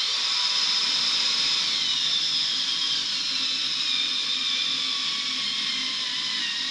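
Cordless rotary tool with a two-flute milling bit, running as a high-pitched whine that sags slowly in pitch as it cuts out bubble voids in soft, freshly cast epoxy resin.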